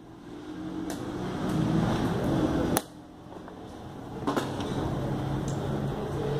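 Plastic chess pieces knocked down on the board and a digital chess clock's button slapped during a fast blitz game: about four sharp knocks, the loudest about three seconds in, over steady background noise.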